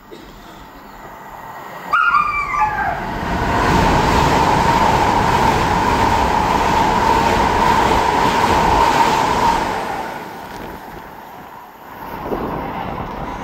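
An LNER Azuma express train sounds its horn about two seconds in, with the pitch falling, then passes through the station at speed: a loud rush with a steady whine that fades away after about ten seconds.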